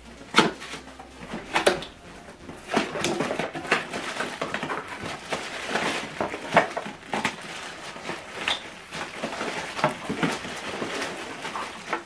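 Hands opening a small cardboard box and rummaging through plastic-bagged cables inside: irregular crinkling of plastic wrap, cardboard flaps scraping and light knocks.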